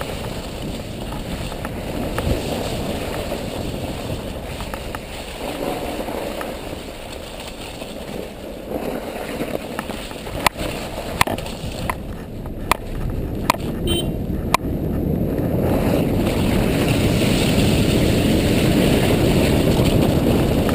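All-terrain vehicle riding over a snow-covered track, heard from a camera mounted on it: a steady low rumble of engine and tyres with wind on the microphone, growing louder about three quarters of the way through. A string of sharp clicks sounds around the middle.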